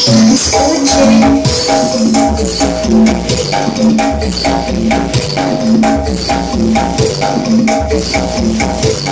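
Loud dance music with a repeating melody over pulsing bass, played through a huge truck-mounted speaker system.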